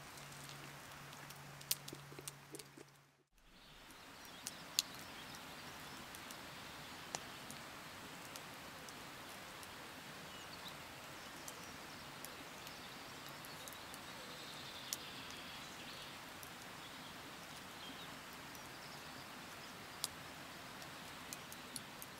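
Quiet countryside ambience: a steady soft hiss with scattered faint clicks and, about two-thirds of the way through, a few faint high bird chirps. A low hum under the first three seconds stops about three seconds in.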